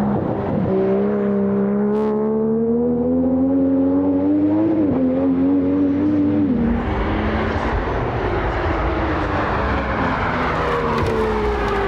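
Time attack race car's engine accelerating hard, its pitch climbing steadily, with a brief dip for a gear change about five seconds in. The engine note drops away about six and a half seconds in, giving way to a louder rushing noise with a slowly falling tone near the end.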